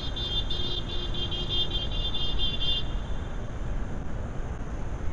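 Steady low rumble of road traffic, with a high, rapidly pulsing trill over it that stops about three seconds in.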